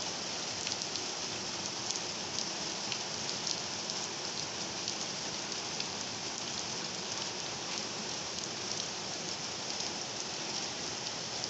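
Heavy rain falling steadily, with many close drops ticking sharply through the hiss. No thunder is heard.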